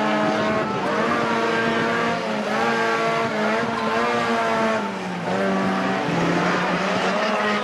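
Engines of several battered banger-racing cars revving hard at once, their pitches holding and then sliding up and down as the drivers rev and ease off.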